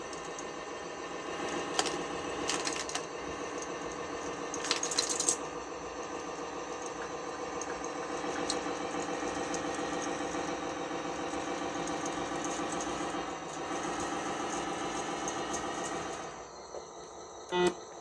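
Radio-controlled truck's drive motor whining steadily as it tows a model bulldozer's loose track across concrete, the track links rattling and clicking, with a few sharper clatters in the first five seconds. The motor stops about two seconds before the end, followed by a single short knock.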